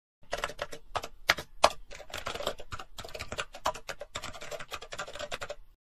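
Typing sound effect: a fast, uneven run of key clicks that stops shortly before the end.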